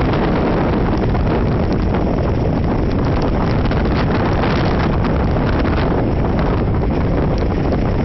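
Typhoon wind blowing across the microphone, a steady low rush that never lets up.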